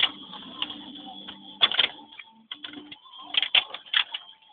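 Irregular knocks and rattles inside a vehicle's cab jolting over rough off-road ground, some sharp and loud, over a low hum that drops out briefly about two seconds in.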